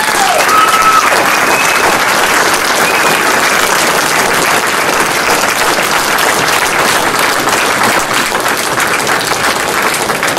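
Crowd applauding, a dense steady clapping from a large audience, with a brief cheer in the first seconds.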